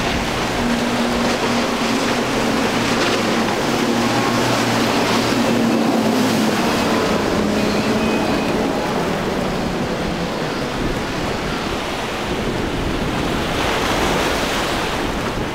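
Surf and churning water rushing over a steady low drone from a Freeman center-console's four Mercury 300 hp outboards running at speed, with wind buffeting the microphone. The engine drone is plainest in the first half or so, under the louder wash of water.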